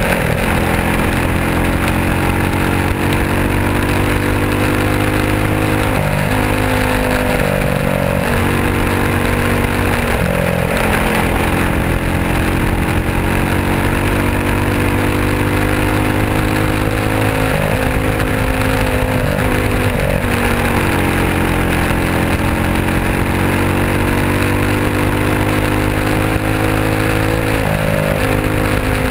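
Winged dirt-track sprint car's engine running hard through a heat race, heard from the cockpit. Its pitch drops and climbs back several times as the throttle is lifted and reapplied for the corners.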